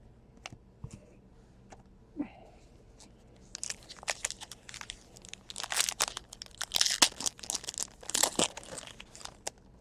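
Foil trading-card pack wrapper being torn open and crinkled: a run of sharp crackles and rustles beginning about three and a half seconds in and dying away near the end.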